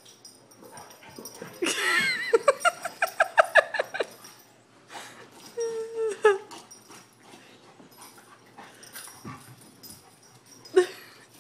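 Mastiff and Jack Russell terrier puppies play-fighting: a loud wavering whine runs into a quick string of yelps, then a shorter held whine about six seconds in and one sharp yip near the end, with scuffling between.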